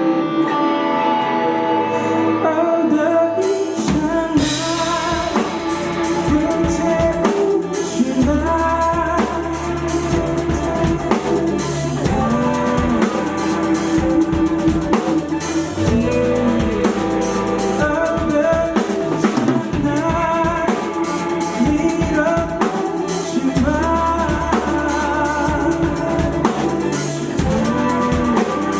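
A band plays live: a singer's wavering sung line over held instrument tones, with the drum kit and bass coming in about four seconds in and carrying a steady beat from there.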